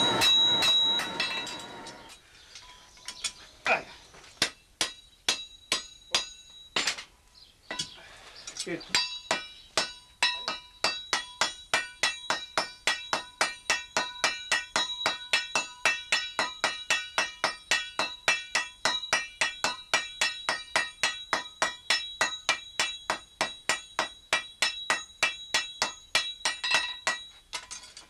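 Blacksmiths forging hot iron on an anvil, the hand hammer and the strikers' sledgehammers ringing off the metal. It opens with a couple of seconds of louder, dense clatter and then a few scattered blows. From about nine seconds in the blows settle into a steady, fast rhythm of about three a second.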